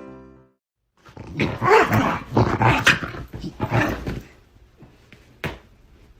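A dog making a loud run of rough, noisy vocal sounds for about three seconds, with some rise and fall in pitch, then falling quiet. A single sharp click comes about five and a half seconds in.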